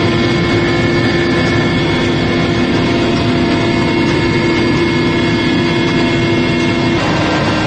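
Helicopter engine and rotors running steadily, a loud continuous rush with a steady hum; the hum shifts slightly about seven seconds in.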